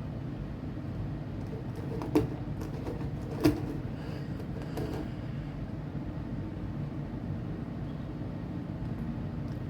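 A steady low hum with two sharp clicks, about two and three and a half seconds in, from an HO-scale Athearn SD40-2 model locomotive being handled on powered track. The locomotive does not run.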